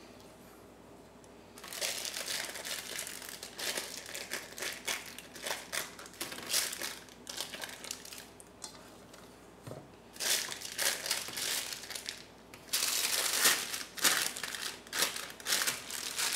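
Plastic piping bag crinkling and rustling in irregular bouts as it is filled with soft cookie dough from a spatula and handled, starting about two seconds in and loudest near the end.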